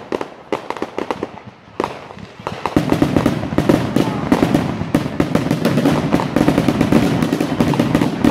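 Fireworks display: scattered bangs of bursting shells, then from about three seconds in a dense, louder run of rapid crackling and popping.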